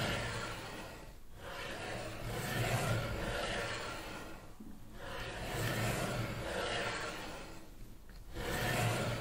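Slow, repeating swells of rough noise with a low hum beneath, each rising and fading over about three seconds, with short breaks between them.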